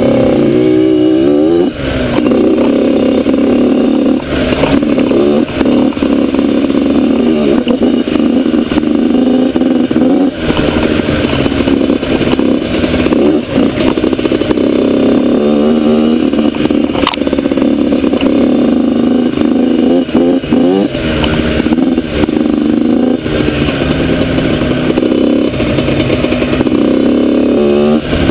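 Yamaha YZ85 two-stroke dirt bike engine running under the rider, its pitch rising and falling again and again as the throttle is worked and the gears are shifted on a muddy trail.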